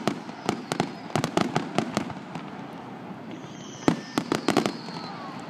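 Aerial fireworks bursting overhead: rapid crackling reports in two clusters, the first about a second in, the second, with the loudest bang, about four seconds in. A falling whistle comes just before the second cluster.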